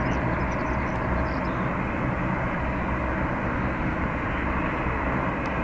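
Jet engine noise of a Boeing 787-10 airliner climbing out after takeoff, its Rolls-Royce Trent 1000 engines at climb power: a steady, even rumble.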